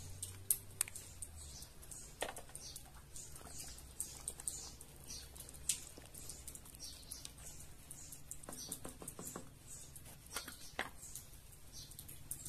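Light clicks and taps of kitchen utensils, about one every second or two, against quick high chirps of small birds that keep up throughout.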